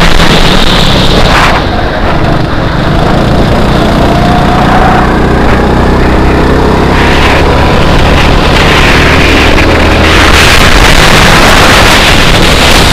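Go-kart engine running hard, heard from on board with heavy wind noise on the microphone. About two seconds in it eases off, then its pitch climbs steadily as the kart accelerates again.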